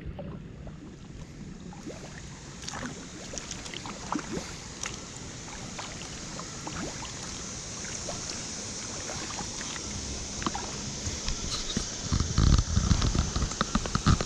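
Kayak paddle strokes in calm river water: drips and small splashes from the paddle blades, with scattered light clicks and knocks. Louder low thumps and sloshing come in near the end.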